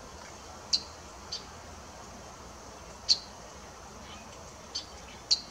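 Female ruby-throated hummingbird giving short, high chip calls: three sharp ones a couple of seconds apart, with two fainter chips between them.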